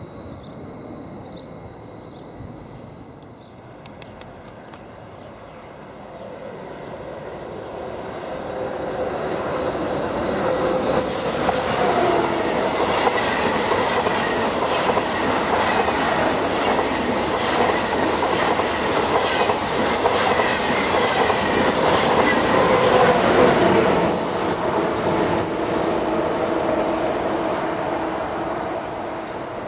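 A train passing through the station. It grows louder over several seconds, runs past loudly for about a dozen seconds with steady ringing tones over the rumble of the wheels, then fades away.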